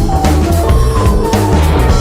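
Instrumental passage of a recorded rock song: a drum kit keeping a steady beat under a deep bass line, with guitar and sustained mid-pitched tones, no vocals.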